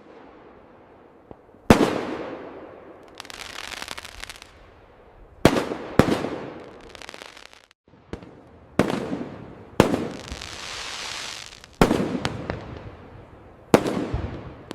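Fireworks display: about seven sharp aerial shell bangs a second or two apart, each followed by a fading hiss and crackle.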